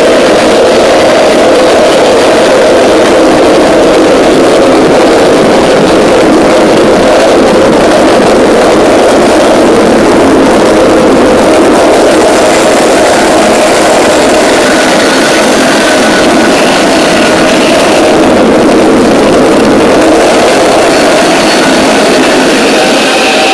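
Home-built turbocharger gas turbine running on propane: a loud, steady rushing roar of combustion and airflow, with a faint high whine coming and going in the second half.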